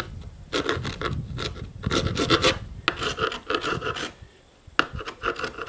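Steel chisel blade scraped back and forth over a hardened epoxy patch on a fiberglass deck, in quick rasping strokes. The strokes pause briefly about four seconds in, then start again.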